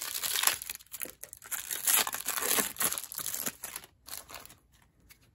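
Clear cellophane wrapper of a trading card pack crinkling and tearing as it is handled and opened by hand, in quick bursts that die down after about four seconds.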